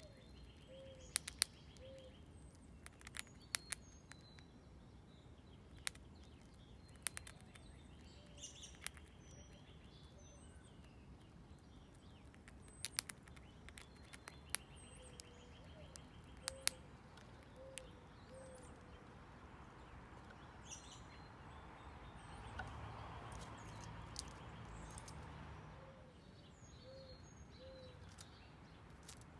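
Gray squirrel crunching dried corn kernels, sharp irregular clicks as it bites through them, with small birds chirping in the background.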